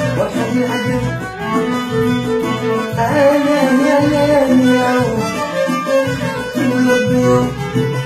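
Moroccan zaari folk music played live: two violins carrying a wavering melody over keyboard accompaniment with a steady bass line.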